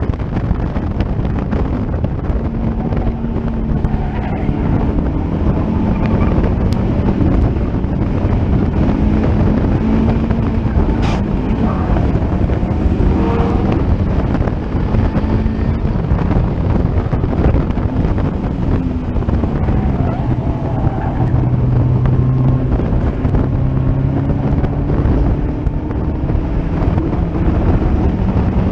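Onboard sound of a Caterham Seven racing car at speed on track: its four-cylinder engine's note climbing and dropping through gear changes, under heavy wind buffeting on the microphone in the open cockpit.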